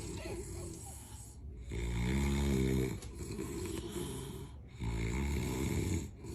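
Someone asleep snoring: two long snores about three seconds apart, each lasting about a second, with quieter breaths between them.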